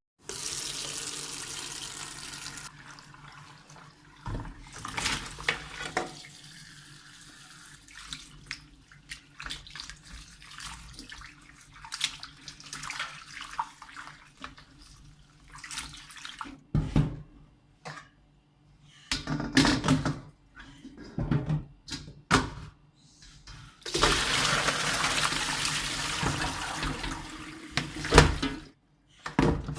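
Water running from a tap into a sink for a few seconds at the start and again near the end, with knocks and clatter of things being handled in between and one sharp knock just after the second run stops.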